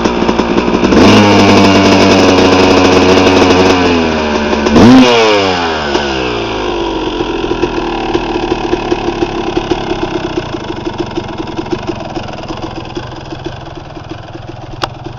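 Suzuki RM250 single-cylinder two-stroke dirt bike engine revved up about a second in and held high for about three seconds, then dropping back. A quick sharp blip of the throttle follows near five seconds, and the engine then settles into an uneven, popping idle.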